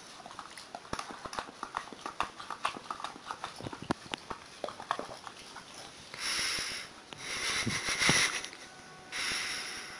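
A cocker spaniel licking out a small plastic yoghurt pot: quick wet tongue clicks and slurps against the pot. After about six seconds come three longer noisy rushes, the loudest about eight seconds in.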